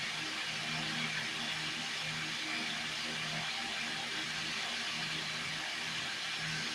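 Steady hiss of aquarium equipment, with a low hum that comes and goes.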